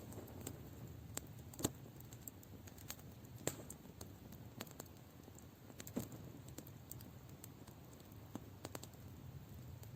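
Campfire crackling: wood burning with irregular snaps and pops, a few sharper ones standing out over a soft low rush.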